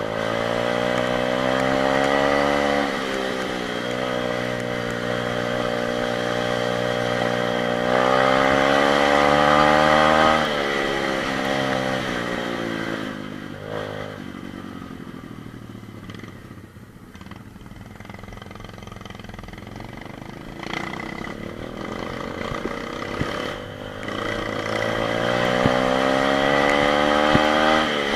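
125 cc pit bike engine being ridden: revs climb and drop off sharply twice in the first ten seconds, run low and uneven through the middle, then climb again near the end.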